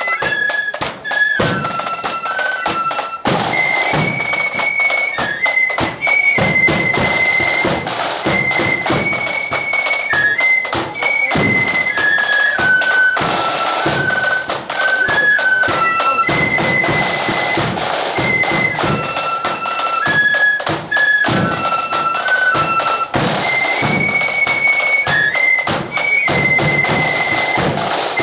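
Marching flute band playing a tune in unison, the high flute melody carried over dense, rapid drumming.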